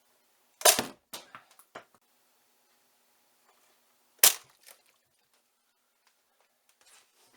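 Nerf dog tennis-ball blaster firing twice, two sharp pops about three and a half seconds apart, the first followed by a few smaller knocks.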